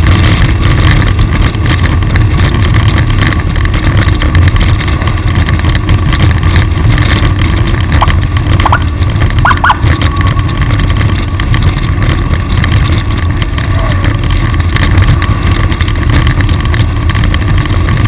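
Vehicle running at speed, a steady loud din of engine, road and wind noise. A few brief high chirps sound about halfway through.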